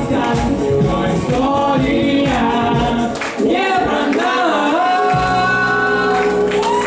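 Closing bars of a pop song: sung vocal runs over a backing track with a steady beat. The beat drops out about three seconds in, and the voices settle into a long held final note over sustained backing chords.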